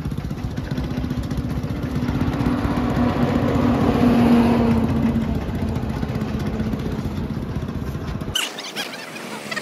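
Road traffic: a vehicle engine passing close by, swelling to its loudest about four seconds in and then fading over a low rumble, until the sound cuts off abruptly near the end.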